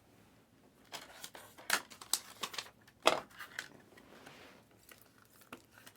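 Trading cards and their packaging being handled: a run of short snaps, clicks and rustles, loudest about two and three seconds in, then fainter.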